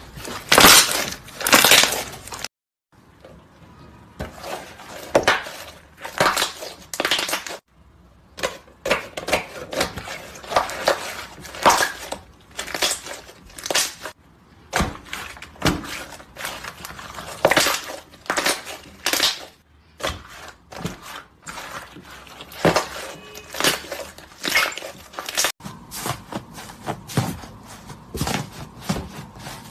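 Slime being pressed, squeezed and poked by hand, giving dense crackling and crunching pops, with several sudden cuts between separate clips.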